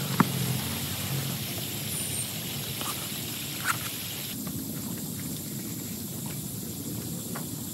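Rain falling steadily, with scattered drops tapping, a sharp tap just after the start and another about halfway through.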